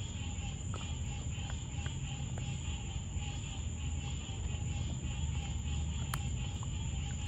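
Night insects calling steadily in high-pitched drones over a low steady rumble, with a few faint clicks and small splashes as raccoon kits paw at the water of a plastic kiddie pool.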